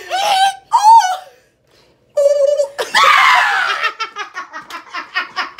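Women laughing hysterically: loud shrieking laughs, a brief pause, then a long falling shriek of laughter about three seconds in, breaking into a rapid run of ha-ha-ha laughter near the end.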